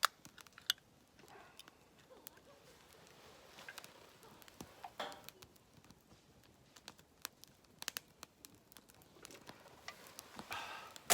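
Irregular light clicks and taps, with a few brief rustles between them.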